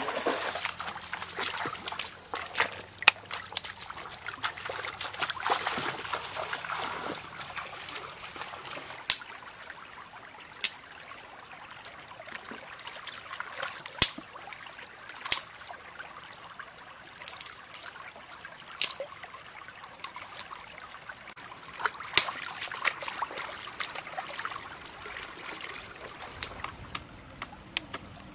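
Shallow rocky stream water splashing around wading legs, then trickling and sloshing as a plucked duck is rinsed by hand in the current. Sharp clicks come every few seconds throughout.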